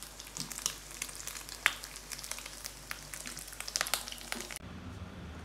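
Dense crackling with irregular sharp clicks over a hiss. It cuts off abruptly about four and a half seconds in, giving way to a low steady rumble.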